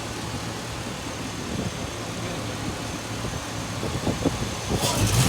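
LS-swapped 5.3-litre V8 idling steadily, its revs starting to climb right at the end.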